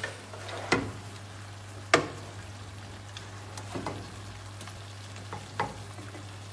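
A spoon stirring savoy cabbage, pork ribs and sausages in a frying pan, with a faint sizzle and four or five sharp knocks of the spoon against the pan.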